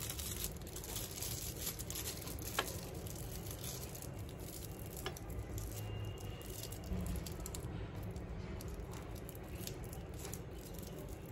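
Crinkly gold foil candy wrapper being folded and twisted around a chocolate by hand: scattered small crackles and clicks over a low steady hum.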